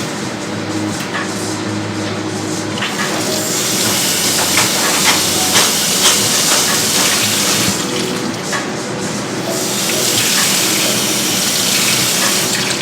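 Kitchen tap water running into a sink, turned on about three seconds in, stopping briefly near eight seconds, then running again, with a few clinks under it.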